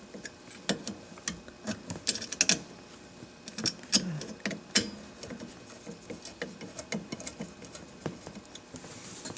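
Irregular light metal clicks, ticks and scrapes of a screwdriver and hands working a ground-wire screw and wires loose at a dishwasher's electrical connection, with a short squeak about four seconds in.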